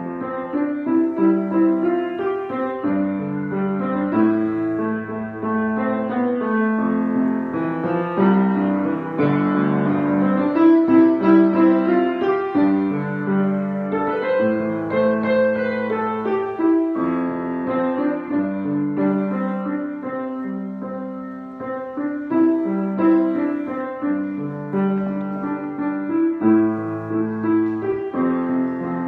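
Piano playing a continuous, flowing piece: sustained notes and chords under a melody.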